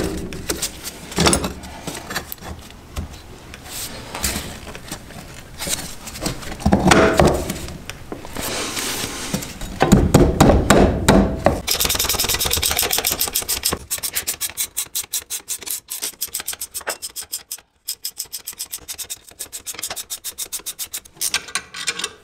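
Clunks and scraping as a homemade spring compressor of steel plates and half-inch all-thread is handled in a vise, then from about twelve seconds in a fast run of short metallic clicks as a wrench winds the nuts down the all-thread, compressing the coil spring on a Lotus Elan front strut.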